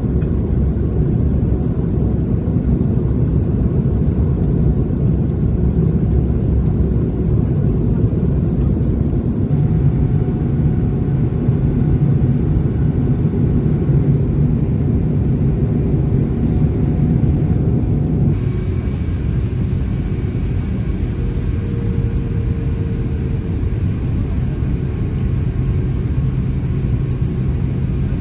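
Airliner cabin noise in flight: a steady, loud rumble of the engines and rushing air inside the cabin. About two-thirds of the way through it drops a little and turns slightly hissier.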